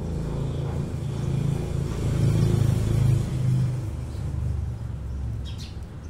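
A low engine rumble that swells to its loudest midway and then fades, with a few short bird chirps near the end.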